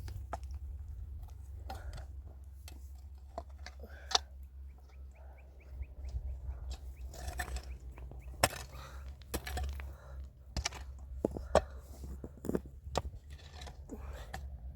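Scattered clicks and knocks of things being handled, over a steady low rumble, with a short run of quick high chirps about five seconds in.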